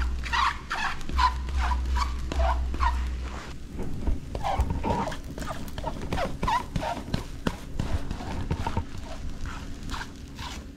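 A white plastic spatula patting and pressing pizza crust dough down in a nonstick pan, a quick run of soft pats several a second. A low rumble sits under the first few seconds and stops about three seconds in.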